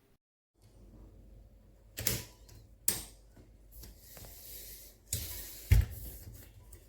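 Clicks and knocks of an aluminium smartphone tripod being handled and adjusted, with sharp knocks about two, three and nearly six seconds in over low handling rumble.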